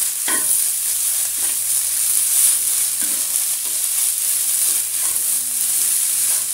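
Fried rice sizzling in a non-stick wok as a wooden spatula stirs ketchup through it, with soft scraping strokes of the spatula about once a second over a steady high sizzle.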